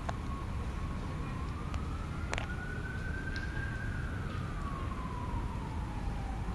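Distant emergency-vehicle siren wailing, its single tone rising and falling slowly over several seconds, over a steady low rumble. A sharp click about two seconds in.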